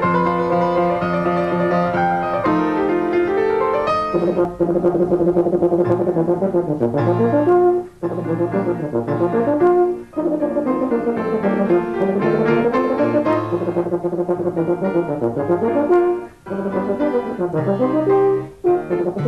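Euphonium playing a fast solo over piano accompaniment: a few seconds of held notes, then rapid runs of quickly tongued notes typical of triple tonguing, broken by brief gaps for breath.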